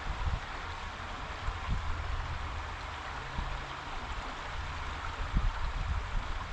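Steady rush of a creek running high after rain, over a low rumble with a few short bumps.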